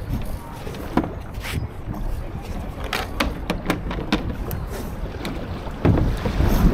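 Laser (ILCA) sailing dinghy under way, with wind buffeting the microphone. A run of short, sharp clicks and knocks comes from the boat between about one and four and a half seconds in, and a louder thump comes near the end.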